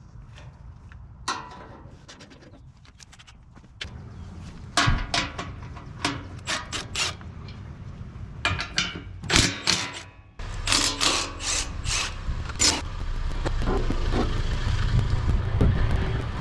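Irregular clicks, knocks and rattles of filters and small parts being handled by hand, over a steady low rumble that swells into a rushing noise in the last few seconds.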